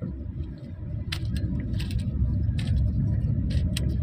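Cheap plastic Rubik's cube being turned fast in a speed-solve, giving irregular quick clicks and snaps, several close together about a second and two seconds in and again near the end. Under them is a steady low rumble.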